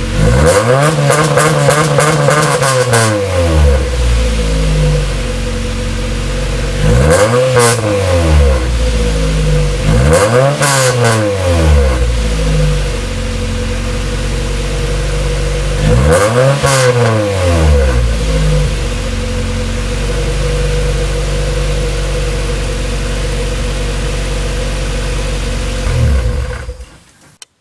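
Honda Civic engine running through a freshly installed Greddy header and Greddy Supreme SP2 exhaust: it idles steadily and is free-revved four times, the first rev the longest. The sound cuts off near the end.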